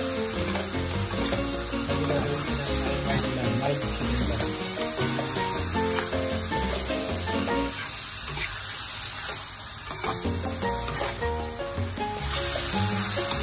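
Raw chicken pieces with chopped aromatics sizzling in hot oil in a non-stick wok, stirred now and then with a metal ladle. Background music plays over it.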